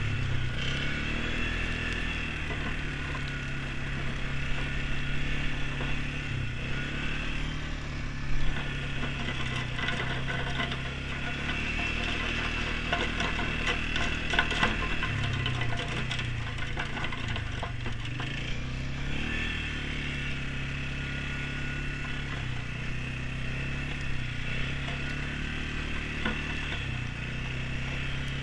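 ATV engine running as it is ridden, its pitch rising and falling with the throttle. There is a short thump about eight seconds in.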